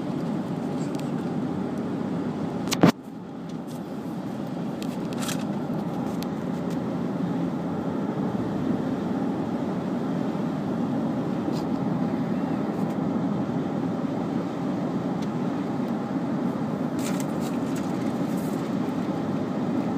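Steady road and engine noise inside a moving car's cabin. About three seconds in there is one sharp click, after which the noise dips and quickly builds back up.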